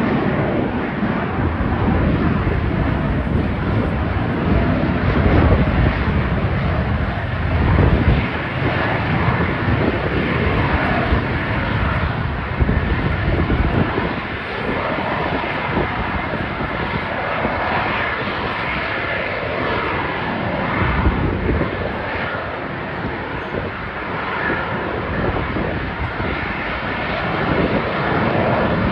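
Military aircraft engines running loudly, a continuous deep rumble with a faint high whine, swelling and easing slowly.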